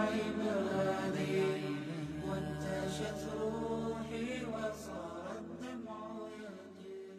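Arabic devotional nasheed: voices chanting a wavering melody over a steady low hum, gradually getting quieter toward the end.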